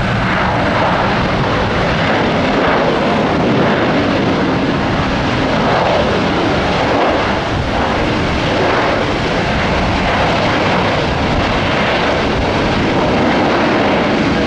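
Jet engines of a Sun Country Boeing 737 airliner on approach, a loud, steady rushing roar as it passes.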